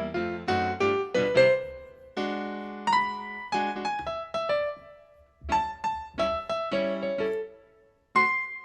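Background piano music: a melody of struck notes that ring and fade, with brief pauses about five and eight seconds in.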